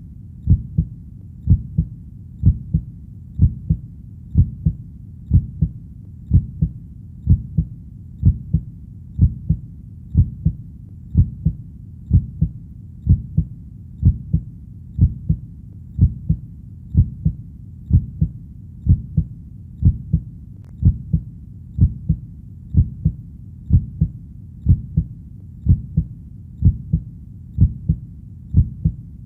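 Heartbeat: steady double beats, each a low thump followed closely by a second, repeating evenly at a calm pace of about one a second.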